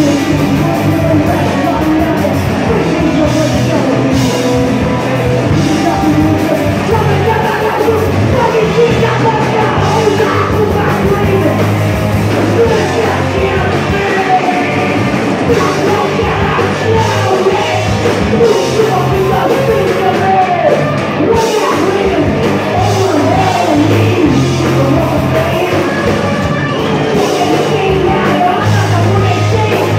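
Live punk rock band playing: a singer's vocals over electric guitar, bass guitar and drums, loud and unbroken.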